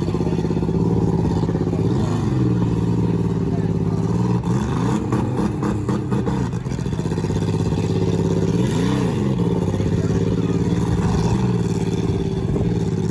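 Demolition derby cars' engines running hard, revving up and down several times, with a cluster of knocks about five seconds in.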